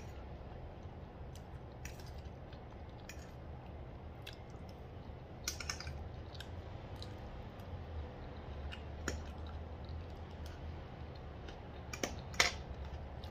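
Metal fork clicking and scraping against a ceramic plate while twirling noodles, with soft chewing. There are scattered light clicks throughout, louder clinks about halfway through and a sharper cluster near the end.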